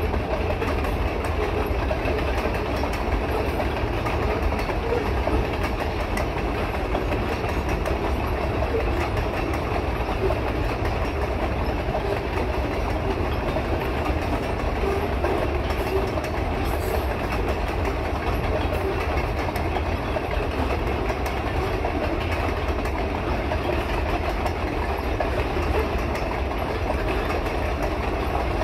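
Freight train of covered grain hopper cars rolling steadily past: a continuous rumble of steel wheels on rail with light clicking.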